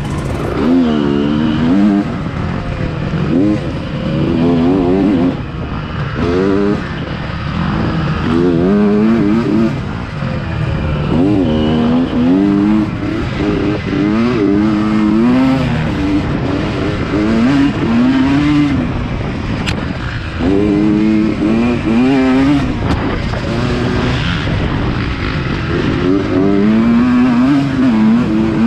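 Dirt bike engine revving up and dropping back again and again as the throttle is opened and closed, the pitch rising and falling every second or two.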